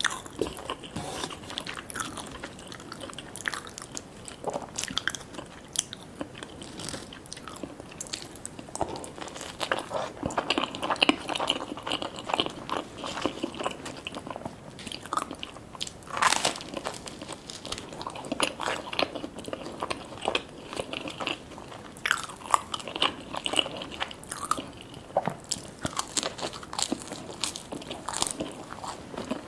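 Close-miked eating: a person chewing and biting food, with irregular crunches and wet mouth clicks and smacks throughout.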